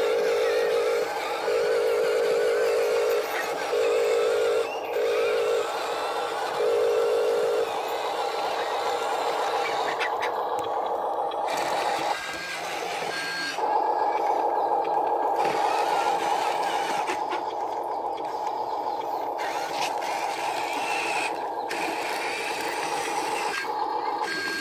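Electric whine of a Huina radio-controlled toy dump truck's motor, starting and stopping in short bursts for the first several seconds, then running steadily at a slightly higher pitch as the truck drives on.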